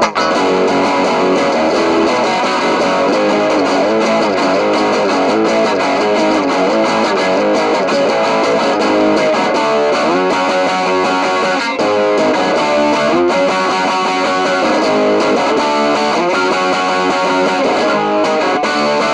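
Squier Sonic Mustang HH electric guitar played with distortion: a continuous riff of sustained chords and moving single-note runs.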